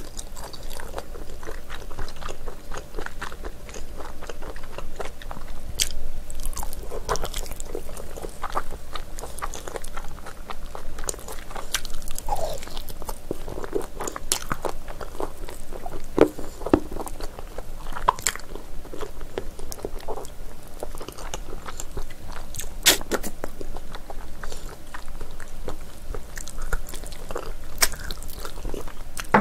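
Close-miked chewing and biting of chewy spicy braised ox feet, with many short, irregular wet mouth clicks.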